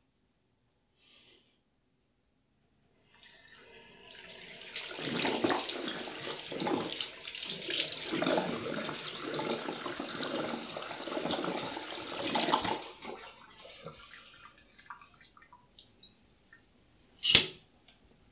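Bathroom sink tap running while water is splashed onto a face with cupped hands again and again, for about eight seconds. The splashing stops about two-thirds of the way through, and near the end there is a single sharp knock.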